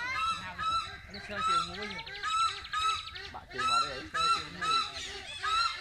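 Loud goose-like honking bird calls repeated about once or twice a second, with softer, wavering calls from other birds underneath and a brief rapid ticking trill in the middle.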